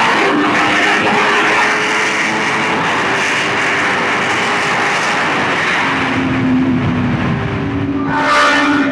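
Aprilia RSV4 1100 Factory's V4 engine running at highway cruising speed under a heavy rush of wind noise. The engine note shifts pitch about six seconds in, and a short, louder burst of engine sound comes near the end.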